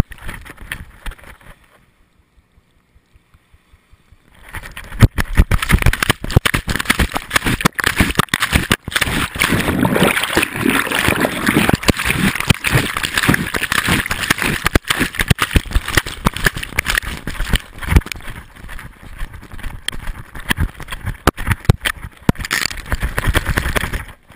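Handling noise from a GoPro Hero2 strapped to a dog's chest harness: loud, irregular rubbing and knocking as the camera brushes the dog's fur and keeps bumping his chin while he moves. It starts about four seconds in and stops suddenly near the end.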